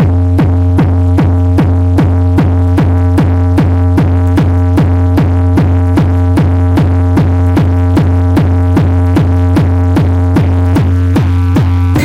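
Electronic dance music with a heavy, steady bass and a fast, even beat of about two and a half strokes a second, played loud through a trunk car-audio system (Hard Power 1850 driven by a Taramps 8.5 kW amplifier).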